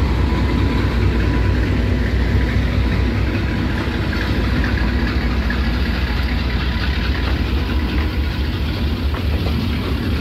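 Diesel locomotive engine rumbling as it passes slowly, the rumble dropping away after about four seconds as a long string of oil tank wagons rolls by with steady wheel-on-rail noise.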